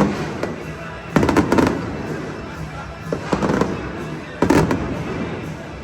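Fireworks going off: four sharp bangs about a second apart, the second a quick double, each followed by a short rumble as it dies away.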